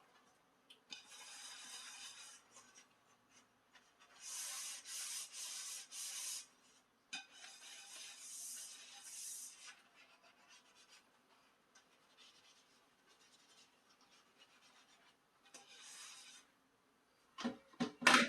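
Dishes being scrubbed by hand in several bursts of rubbing strokes, then a brief loud clatter just before the end.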